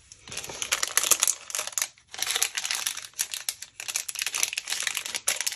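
Crinkling of plastic product packets being handled: dense, fast crackles in bursts with a couple of short pauses.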